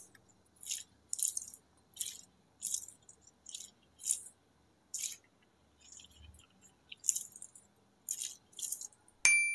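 Mesh stress ball filled with water beads squeezed and released by hand over and over, each squeeze giving a short wet, crackly squish, about a dozen in all at a steady pace. A short bright ringing tone comes in suddenly near the end.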